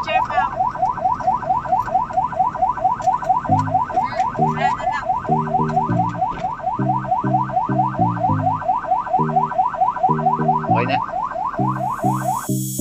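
Ambulance's electronic siren in yelp mode, heard from inside the ambulance: a fast repeating rising wail, about five sweeps a second, that cuts off suddenly near the end.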